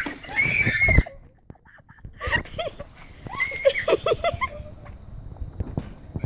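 A girl shrieking from the shock of ice-cold water poured over her: high cries that break off about a second in, then a second run of short, wavering shrieks a second or so later.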